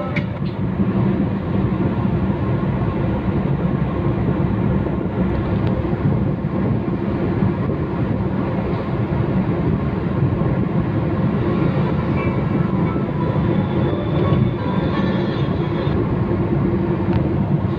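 Steady road and engine noise inside a moving car's cabin at highway speed, an even low rumble throughout.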